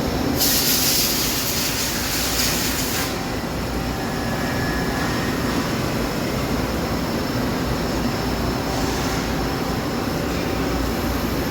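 Nakamura-Tome AS-200Y CNC turning center running with a steady machine hum. A loud hiss starts about half a second in and lasts about three seconds, and a shorter, fainter hiss comes near nine seconds.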